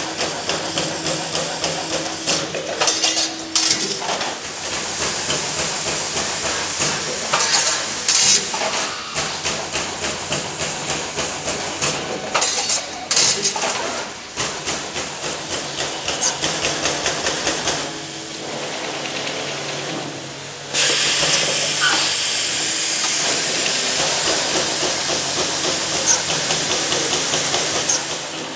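Trumpf CNC punch press punching sheet metal, striking in a fast even rhythm of several strokes a second. About two-thirds of the way in, the strokes give way to a steady hiss, and quick strokes come back near the end.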